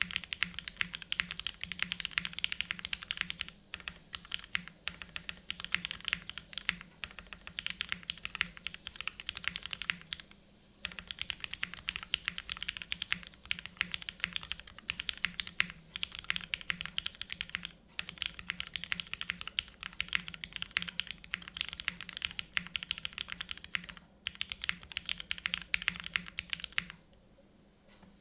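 Fast, continuous typing on an Anorexus Void65 mechanical keyboard in O-ring mount, with Cherry MX2A Black linear switches and GMK Jamon keycaps. Short pauses break it a few times, and it stops shortly before the end.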